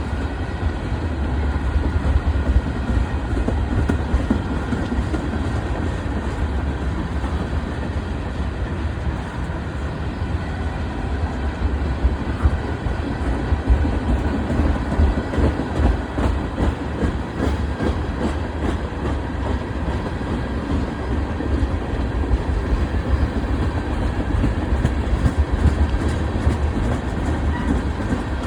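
BNSF freight train rolling past on the rails, a steady low rumble of cars and wheels on the track with no horn sounding.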